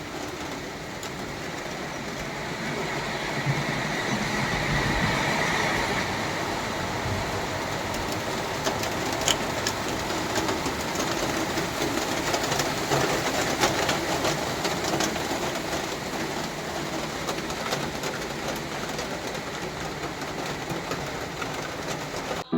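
Steady noise of a moving vehicle, with scattered clicks and rattles.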